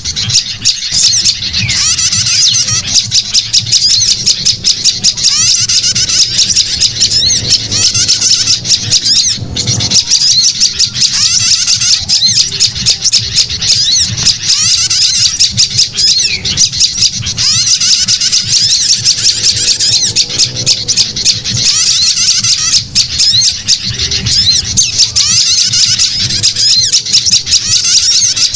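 Dense, continuous chorus of small songbirds calling fast, high chirps and harsh squawks, one call over another: a bird-lure recording (suara pikat) played to attract wild birds.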